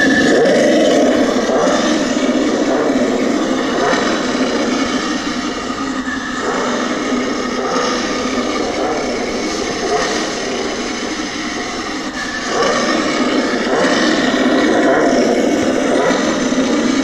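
Remote-control toy car's electric drive motor and gears running under throttle: a loud, grinding whir that starts abruptly, eases off a little in the middle and picks up again about twelve seconds in.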